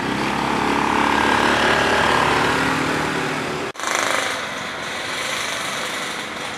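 Motor scooter engine running close by, stopping abruptly about three and a half seconds in, followed by steady outdoor background noise.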